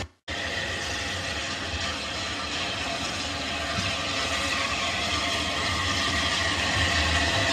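OO-gauge model train running on the track: a steady motor hum with the rumble of the wheels on the rails. The sound drops out for a split second right at the start.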